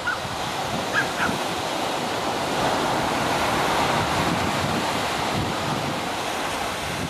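Shorebreak surf breaking and washing up the beach, swelling louder in the middle, with wind buffeting the microphone. A couple of faint short chirps come near the start.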